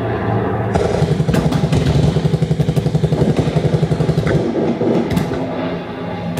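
Sound-art soundscape played through loudspeakers in the trees: a low, fast-throbbing engine sound like a motorcycle, strongest in the first two-thirds and thinning out about four and a half seconds in, with scattered sharp clicks.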